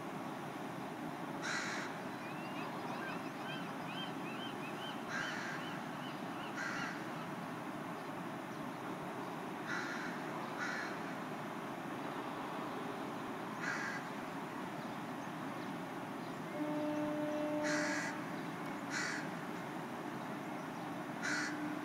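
Crows cawing, single short harsh caws a few seconds apart, over a steady background noise. A run of quick high chirps from a smaller bird comes a few seconds in, and a brief low hum sounds about two-thirds through.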